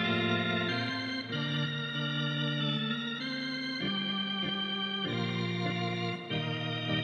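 Organ music playing held chords that change about every second, accompanying the graduates' processional.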